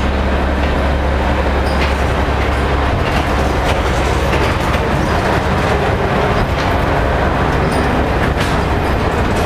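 Ghost train car rolling along its track: a steady low rumble and rattle with scattered clicks and clacks from the wheels and rail.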